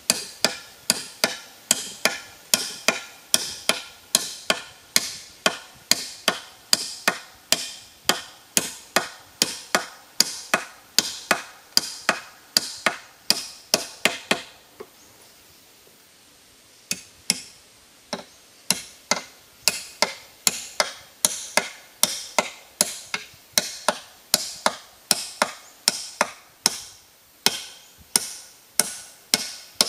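Repeated hand chopping strokes of a blade into a wooden pole, about two a second, stopping for a few seconds around the middle and then resuming.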